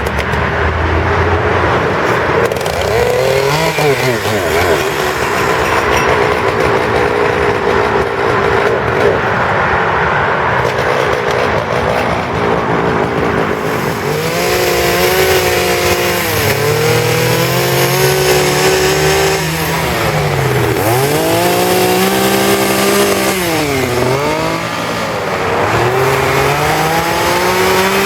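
Gasoline chainsaw running continuously while carving wood. About halfway through, the engine note begins to sink and climb again several times as the throttle is eased and reopened and the chain bites into the wood.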